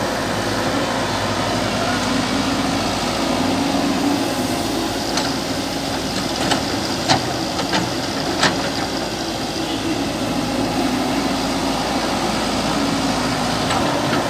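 JCB excavator's diesel engine running steadily, with a few sharp knocks about halfway through.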